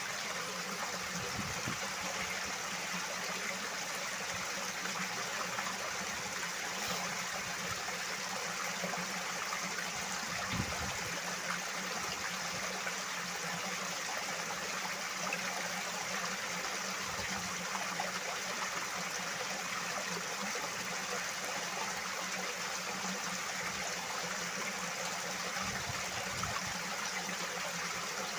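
Running water, a steady continuous flow with no change in level.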